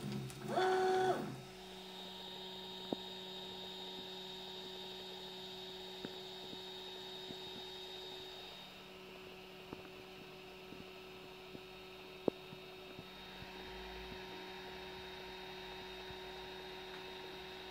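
3D printer's stepper motors whining through a quick move about half a second in, then a steady electrical hum with a few faint ticks from the idle printer, its print finished.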